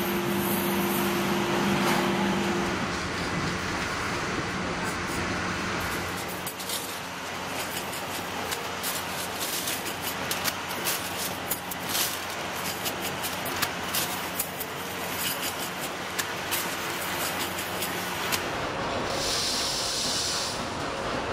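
Workshop machine hum, then rapid clinks of steel wire spokes being handled. Near the end, a hissing rush of small metal parts poured out of a metal pot onto a sack.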